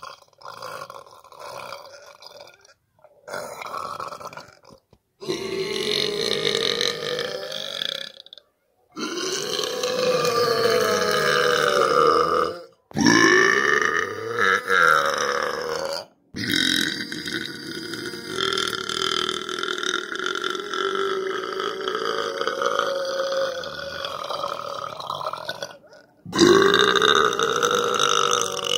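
Long, drawn-out pitched vocal sounds, about seven in a row with short silences between them; the longest runs for close to ten seconds, and none of them contains words.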